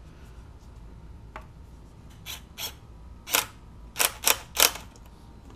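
About seven sharp clicks and clacks of hand tools and hard parts being handled while engine hoses are reconnected, spaced unevenly, with the loudest three close together about four seconds in.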